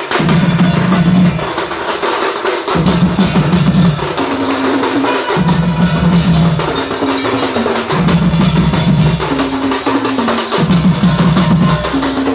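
Odia Singha Baja street band playing: huge barrel drums beaten with sticks and clashing hand cymbals in a fast, dense rhythm. Under the percussion a low sustained tone steps back and forth between two pitches about every second.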